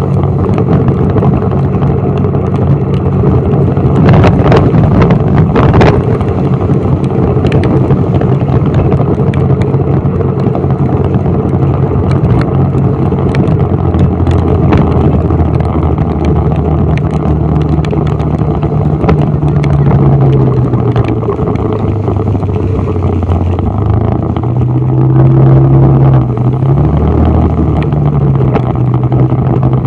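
Road vehicle's engine running while driving, heard from inside the cabin, over the hiss of tyres on a wet road. The engine's pitch dips and rises again in the second half as the speed changes.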